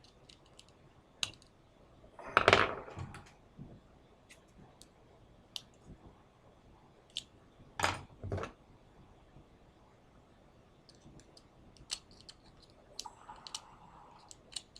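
Small metallic clicks and taps of tools working on a Yale pin-tumbler lock cylinder while its retaining C-clip is pried off. There are two louder clattering knocks, about two and a half and eight seconds in.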